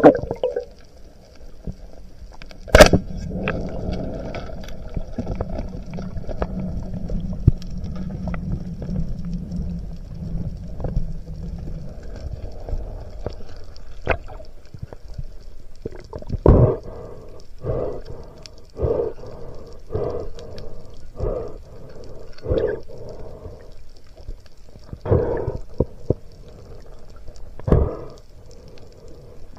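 Speargun fired underwater: one sharp crack about three seconds in, followed by low, muffled underwater water noise. Later comes a run of about ten short water sounds roughly a second apart.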